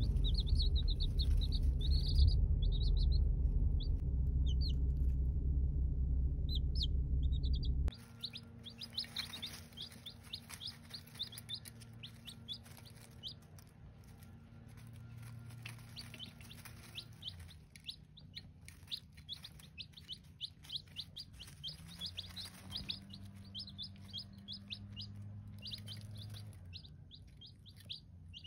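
Baby chicks peeping: many short, high, rapid peeps that run on without pause. For the first eight seconds a loud low rumble lies under the peeping, then it stops abruptly.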